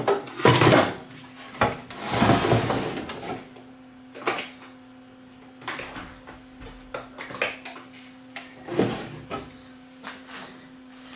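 A CRT television's plastic cabinet and circuit board being handled and fitted back together: clattering, scraping and knocks, busiest in the first three seconds, then scattered single clicks and taps. A low steady hum runs underneath.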